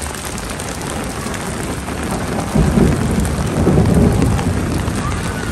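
Heavy rain pouring steadily onto wet pavement, with a low rumble of thunder rolling in about halfway through and fading over a couple of seconds.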